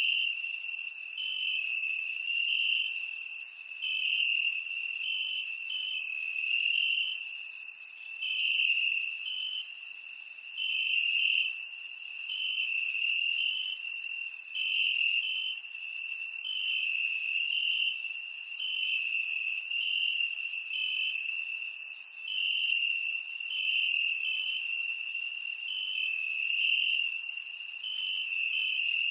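Crickets chirping: a steady high-pitched trill with short chirps repeating over it, swelling and fading in loudness every second or two.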